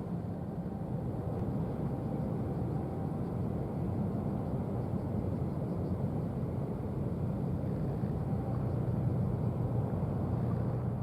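Steady low drone of a container ship's diesel engine running, with a constant deep hum.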